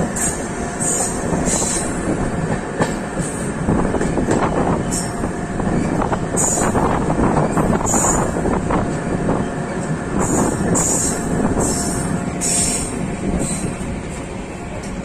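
Passenger train coach rolling slowly along the track, heard from its open door: wheels rumbling and clattering on the rails, with short high-pitched wheel squeals coming again and again.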